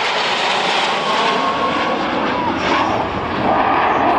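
F-16 Fighting Falcon jet engine noise, loud and steady, with a faint whine sliding slightly lower in pitch midway.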